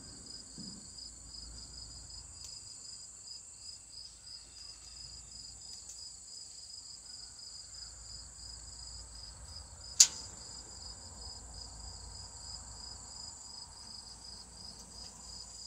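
Outdoor insect chorus of crickets: a steady, evenly pulsed high chirping over a continuous high trill. One sharp click about ten seconds in.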